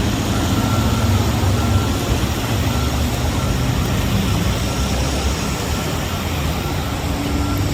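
Steady low rumble of vehicle engines and street traffic, with a faint on-and-off high whine over it.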